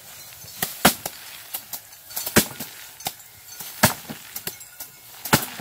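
Bundles of rice stalks beaten by hand against a wooden threshing stand to knock the grain loose: four sharp whacks about a second and a half apart. Lighter knocks in between come from bamboo sticks beating rice stalks on a tarp.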